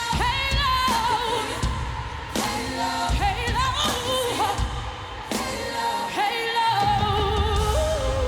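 Live pop music: a lead singer's wordless, wavering vocal runs with vibrato over a band with drums and bass.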